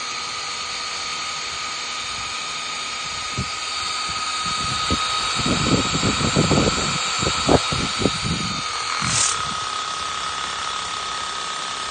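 Cordless electric pressure washer's motor and pump running with a steady, pretty quiet whine while it primes. From about four to nine seconds in, irregular sputtering spurts come through as it takes up water.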